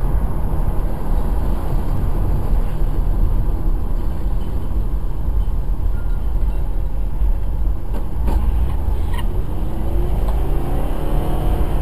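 Steady low road and engine rumble of a car driving on a highway, as picked up inside the cabin by a dashcam.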